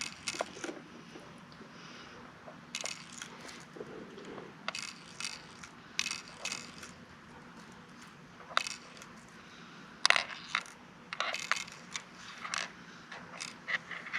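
Metal BBs being loaded into the magazine of a Crosman DPMS SBR BB rifle: irregular clusters of small, sharp metallic clicks and rattles.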